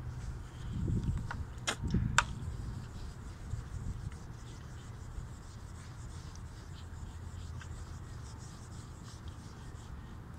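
Paper towel rubbing over a plastic car headlight lens as it is wiped and buffed, soft scratchy strokes over a steady low rumble, with a couple of sharp clicks about two seconds in.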